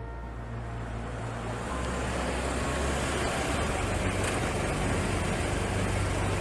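Car driving along a road: a steady low engine hum under tyre and road noise, getting a little louder about two seconds in.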